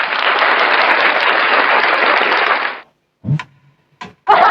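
Canned applause effect from a V8 sound card's built-in presets: a steady wash of clapping that cuts off abruptly about three seconds in. Two short clicks follow, and near the end a canned laughter effect starts.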